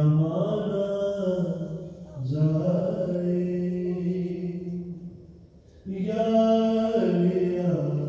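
A single voice chanting a devotional melody in long held notes, in three phrases with short breaths between them, about two seconds in and around the five-second mark.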